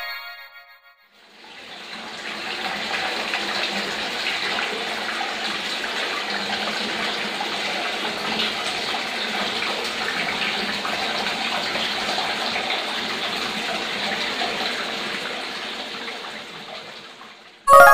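Water pouring and splashing into a small garden koi pond, a steady rushing splash. It fades in after about a second and fades out near the end.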